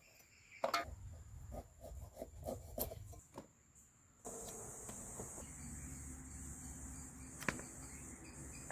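Fresh cashew nuts being split on an upright knife blade and dropped into a metal bowl: irregular small clicks and knocks, with one louder knock under a second in. Insects keep up a steady high buzz throughout, which grows suddenly louder about four seconds in, with a single sharp knock near the end.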